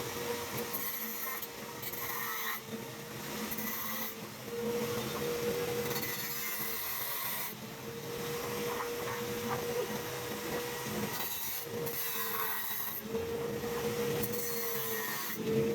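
Tool scraping and rubbing on radiator metal in strokes a second or two long, over a steady hum that dips in pitch briefly where the strokes break off.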